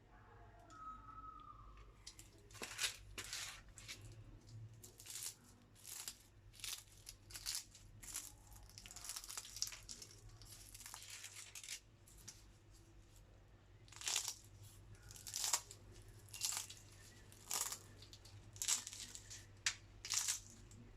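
A run of short crackling, crinkling sounds, roughly one or two a second, with a denser rustle in the middle and the sharpest crackles near the end.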